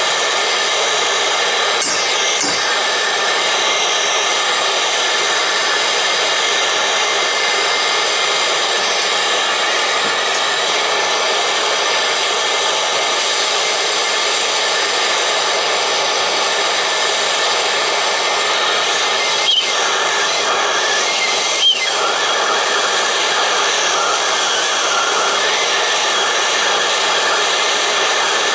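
Plumbing torch burning with a loud, steady hiss while heating copper pipe, with two short clicks about two-thirds of the way through.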